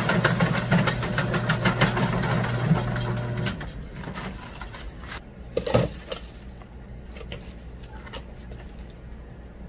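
An electric machine running with a steady hum and a fast rattle, cutting off about three and a half seconds in. Then one short thump and quieter handling sounds.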